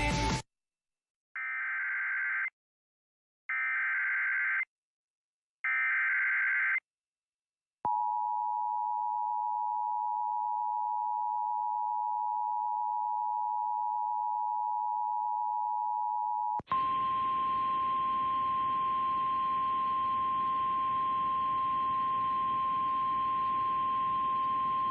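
Emergency Alert System alert opening. First come three short bursts of SAME header data tones. Next the two-tone EAS attention signal is held for about nine seconds. Then a single steady 1050 Hz NOAA Weather Radio warning alarm tone plays over radio hiss, announcing a severe thunderstorm warning.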